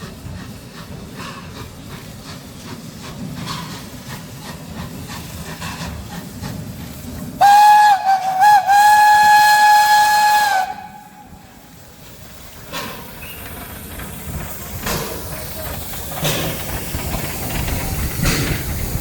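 Steam locomotive whistle blown once for about three seconds: one steady note that wavers twice near the start, then cuts off. Before it there is a low rumble with scattered clicks from the train.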